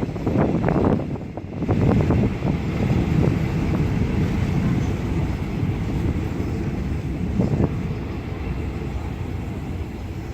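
Train running on the rails with a steady low rumble. A few sharp knocks come in the first couple of seconds and another near the end, and the rumble eases slightly.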